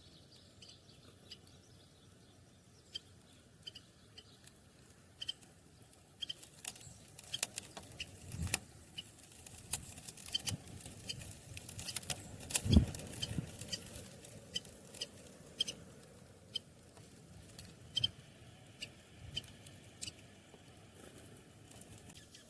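Small birds feeding in snow: irregular light taps and clicks, with short high chirps among them. There is a louder single thump about halfway through.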